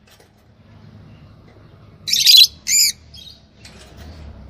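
Lovebirds calling: two loud, shrill chirps about two seconds in, then a few fainter calls over a low background hum.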